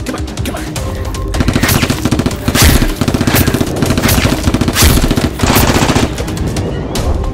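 Rapid automatic gunfire sound effect in several bursts, starting about a second and a half in and stopping about six seconds in, laid over background music.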